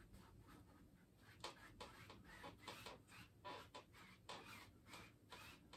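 Faint, soft swishes of a brush stroked lightly across an oil-painted canvas, about three strokes a second, as the wet sky paint is blended out.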